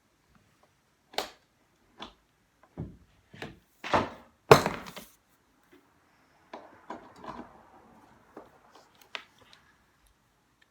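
Small metal and plastic model-locomotive parts and tools handled on a workbench: a string of sharp clicks and knocks, the loudest about four and a half seconds in, followed by lighter clicking and rustling.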